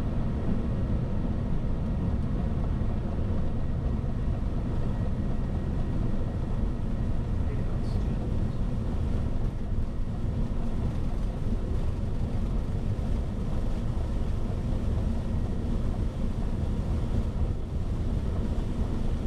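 Steady rush of air and engine noise on the flight deck of a Boeing 737-800 in flight.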